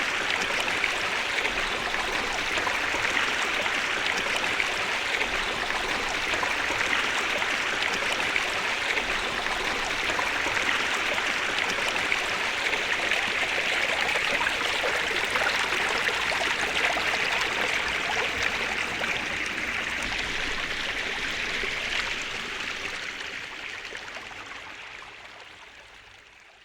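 Steady running water, fading out over the last few seconds.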